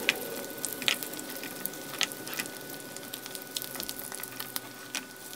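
Butter sizzling in a frying pan around halved hard-boiled eggs, a steady hiss with scattered sharp crackles.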